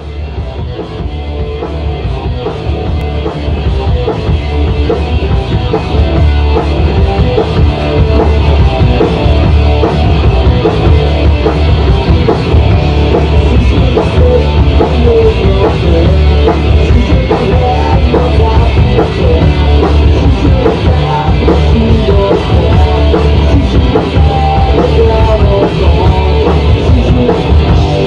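Punk rock band playing live without vocals: electric guitar, bass guitar and drum kit. It grows louder over the first six seconds or so, then stays loud and steady.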